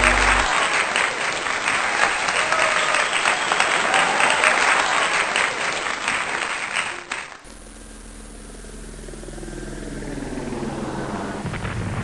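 Audience applause and cheering, a dense even clatter of clapping. About seven seconds in it cuts off suddenly to a quieter steady low rumble with rushing noise.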